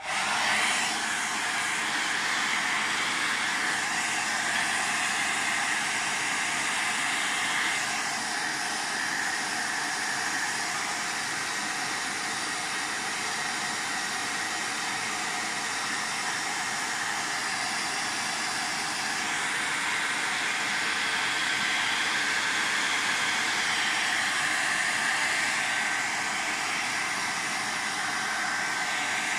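Handheld electric hot-air dryer switched on and blowing steadily, drying wet paint on an art journal page.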